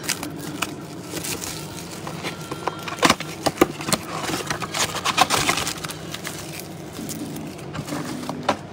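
Blaster boxes of trading cards and their plastic wrappers being torn open and handled: irregular crackles, rips and sharp clicks, busiest from about three to six seconds in, over a steady low hum.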